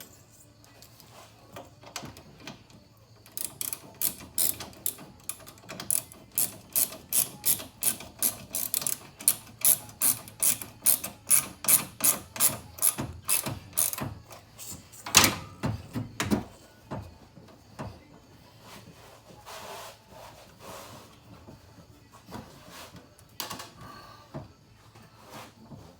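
Hand socket ratchet clicking in rapid, even strokes, about three clicks a second, as a fan-mount bolt is run in. It stops with a couple of louder metallic knocks, then only faint handling sounds.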